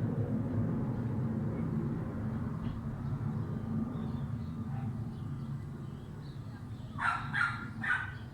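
Low rumble of a passing airplane, slowly fading away. Near the end come three short, loud calls in quick succession.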